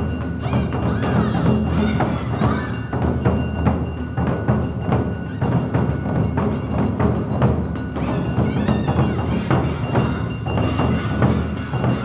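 Awa odori dance music: taiko drums and a clanging kane gong keep a fast, steady rhythm, with a gliding melody line above.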